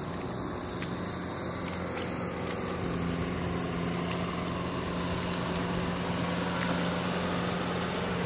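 An engine running steadily with a low, even hum that grows slightly louder partway through.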